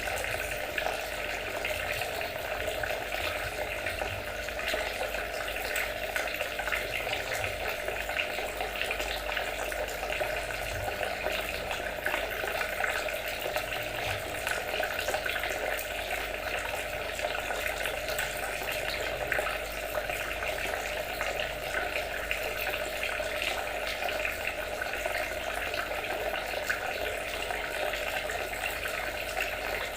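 Water trickling and splashing steadily, a continuous babbling with fine irregular droplet patter.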